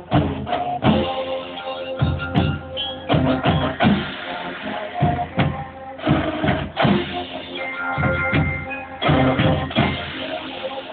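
Military marching band playing live: brass instruments sounding sustained notes over frequent drum strikes.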